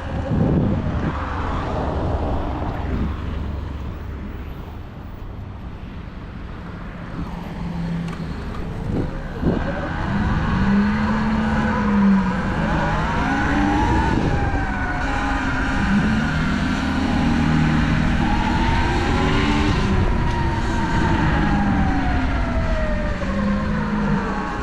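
Surron Light Bee X electric dirt bike's motor whining, its pitch rising and falling over and over as the bike speeds up and slows, over a heavy rumble of wind on the microphone.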